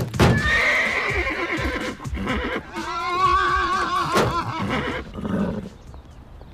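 A man whinnying like a horse: a first cry, then a long, quavering neigh that wobbles in pitch, fading out about five seconds in.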